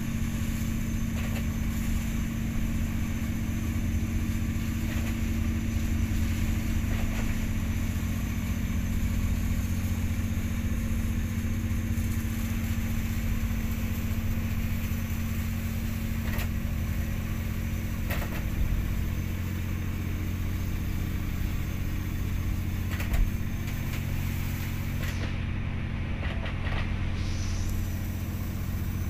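A ship's engine running steadily, a constant low drone heard inside the wheelhouse, with an occasional light knock.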